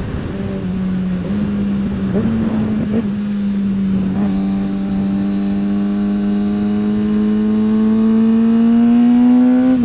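Kawasaki ZX-6R sport bike's inline-four engine running at a steady cruise, its note stepping up slightly in the first couple of seconds and then, from about four seconds in, rising slowly and evenly as the bike gains speed. Wind noise rushes underneath.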